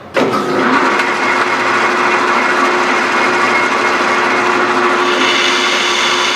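An old lathe starts up suddenly and runs steadily, its spindle and belt drive turning while a boring bar with a carbide insert cuts inside a pulley bore. About five seconds in, a higher ringing comes in on top: tool chatter in the cut.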